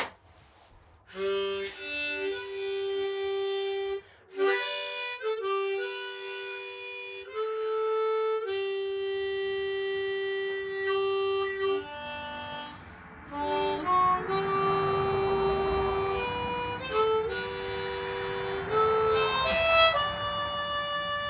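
Harmonica playing a slow tune of held notes that change pitch in steps.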